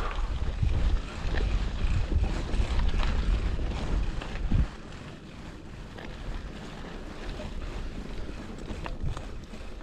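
Wind buffeting the microphone as a Specialized Pitch mountain bike rides a dirt desert trail, with scattered clicks and rattles from the tyres and bike over the rough ground. The wind rumble drops off sharply about halfway through, leaving the quieter trail noise.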